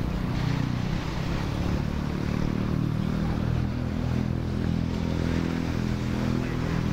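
An engine running steadily at low revs, an even low hum with no change in speed.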